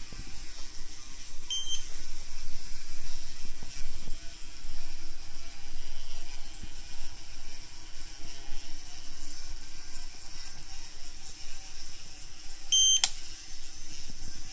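Motorised LEGO mini-trains running along plastic LEGO track, motors and wheels making a steady rattling whir. A short high electronic beep sounds twice, about a second and a half in and near the end, as the RFID reader registers a train's tag; a sharp click follows right after the second beep.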